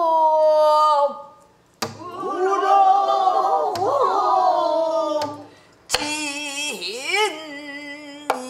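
A woman singing pansori in a wavering, sliding voice, with a few sharp stick strokes on a buk barrel drum, about one every two seconds.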